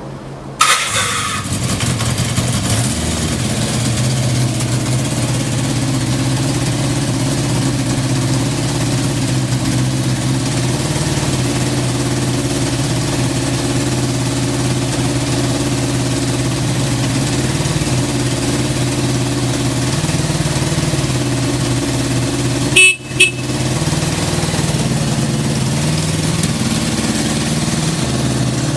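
Kawasaki Z650 air-cooled inline-four motorcycle engine started on the electric starter, catching at once about half a second in, then idling steadily. About 23 seconds in there are two brief, sharp loud sounds.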